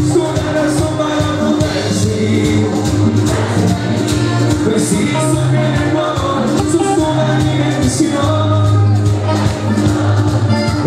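Live cumbia band playing with a steady percussion beat and a bass line, a male lead singer singing into a stage microphone.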